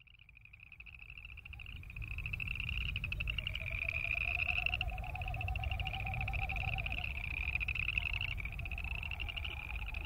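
A chorus of boreal chorus frogs: overlapping rapid, rising trills, each a second or two long, like a finger run along a comb. It fades in over the first two seconds. Midway a lower pulsing trill joins for a few seconds, over a low rumble.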